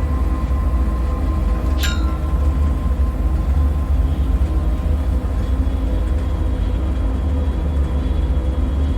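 Dark ambient drone: a steady deep rumble with faint held tones above it. About two seconds in, a short, sharp sound sweeps quickly down from very high and trails off as a faint tone.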